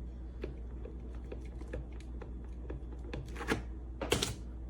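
Light clicks and knocks as a wobbly electric kettle base is rocked and handled on a countertop, with sharper knocks about three and a half and four seconds in, over a low steady hum.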